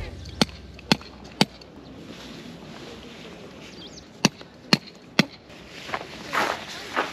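Tent pegs being hammered into the ground with a mallet: three sharp strikes about half a second apart, a pause of a few seconds, then three more. Softer rustling follows near the end.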